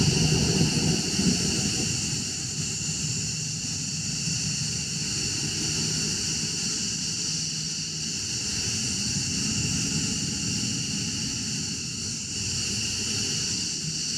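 Fighter jet engines running at idle: a steady high whine over a low rumble.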